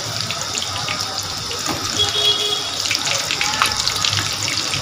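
Bread cubes deep-frying in hot oil: a steady sizzle with small scattered crackles.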